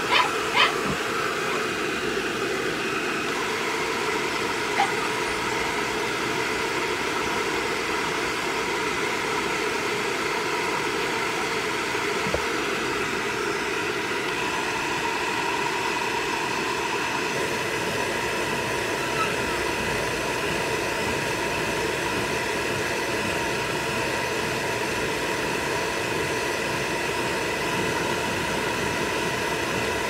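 Hair dryer blowing steadily: a constant rush of air with a faint whine, whose pitch shifts slightly about halfway through. A few light clicks in the first second.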